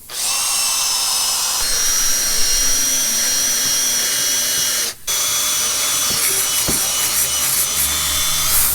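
Power drill running with a bit bored into a nail puncture in a tire, widening the hole so a plug can go in. It runs steadily with a whine, stops briefly about five seconds in, then starts again.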